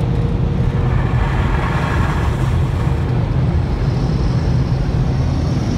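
Car wash tunnel's blower dryers running, heard from inside the car's cabin: a steady deep rumble with a rush of air that swells about two seconds in.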